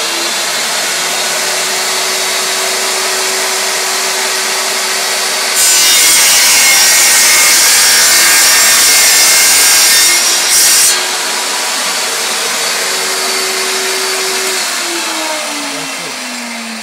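Makita table saw running at full speed. For about five seconds in the middle its blade cuts through a PVC pipe with a louder, harsher noise, followed by a brief second touch. Near the end the motor winds down, its pitch falling.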